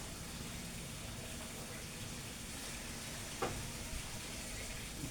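Steady background hiss of room noise with a faint low hum, and one small click about three and a half seconds in.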